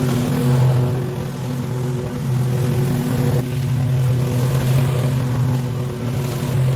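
Small engine running steadily at a fairly constant speed, typical of lawn-care power equipment such as a mower or trimmer.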